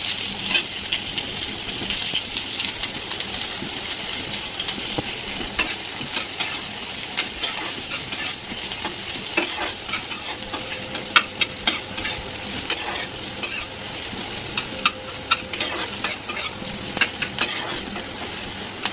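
Sliced onion sizzling steadily as it fries in hot mustard oil in a kadai. A spatula stirs it, scraping and clicking against the pan many times, more often in the second half.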